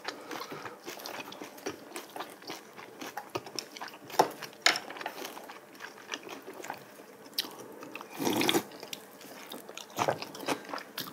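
Close-miked eating sounds: chewing, with small clicks of metal chopsticks against bowls and plates. There are a couple of sharper clicks about four seconds in and a brief louder rustle about eight seconds in.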